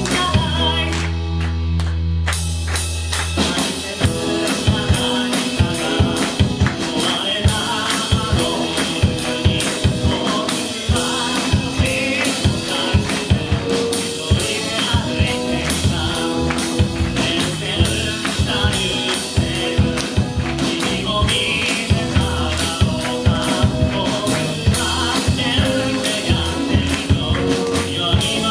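Live band playing a song with singing, electric guitar and drum kit. A chord is held for the first few seconds, then the drums come in with a steady beat under the vocals.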